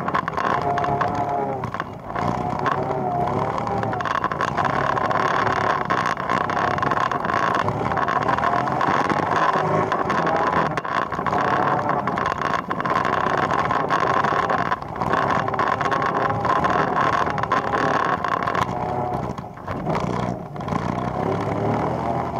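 ATV engine running under way, its pitch rising and falling with the throttle. It eases off briefly a few times, most clearly near the end. Short knocks are heard over it now and then.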